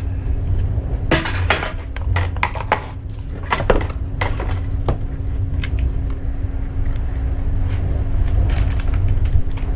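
Scattered metallic clinks and clatters of tools or small parts being handled, busiest in the first half and again near the end, over a steady low machine hum.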